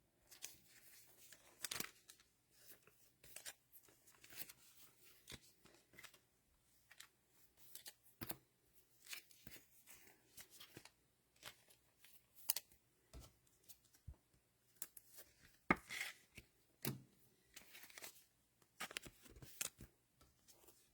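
Cellophane wrapper of a trading card pack being torn open and crinkled, with faint scattered crackles and clicks of cards being handled.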